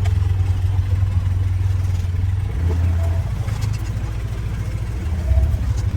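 A vehicle engine running steadily at low speed, a deep even rumble with a slight rise in level about two and a half seconds in and again near the end.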